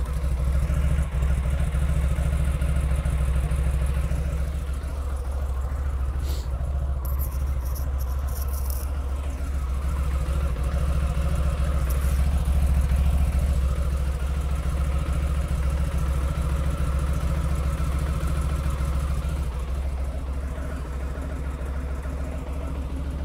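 Honda ST1100 Pan European's V4 engine idling steadily, heard close to its original exhaust muffler.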